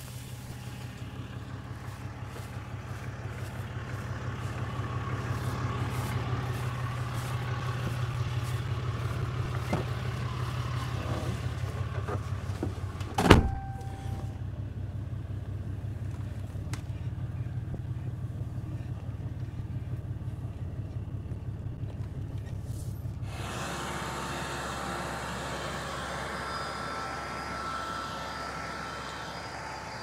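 A vehicle engine running steadily at low speed, heard from inside the cab, with one sharp, loud knock about halfway through. About three-quarters of the way in the sound changes abruptly to a different steady engine hum with a faint whine.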